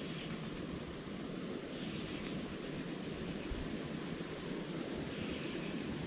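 Wind rushing over the microphone in a steady rumble, with three short high buzzing bursts: near the start, about two seconds in, and a little after five seconds.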